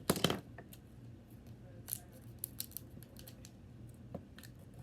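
Sharp clicks and taps from handling small plastic slime-making supplies: one louder rattle at the very start, then scattered single clicks.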